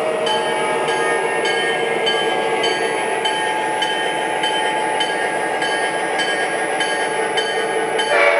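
Diesel engine sound effect from the speaker of an MTH Premier O-gauge Norfolk Southern GP35 model locomotive with Proto-Sound 2.0, running steadily as the model rolls along three-rail track, with a high sound that repeats about every two-thirds of a second.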